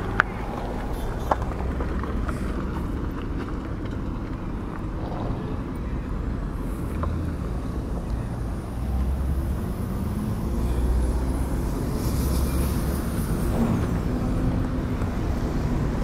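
Road traffic: motor vehicles running past on a rough road, a steady low rumble that swells a little about nine seconds in.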